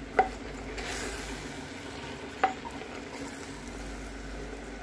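Spinach and chicken being stirred with a wooden spoon in a clay cooking pot over a gas flame, with a soft sizzle. Two sharp knocks of the spoon against the clay pot, about two seconds apart, the first just after the start.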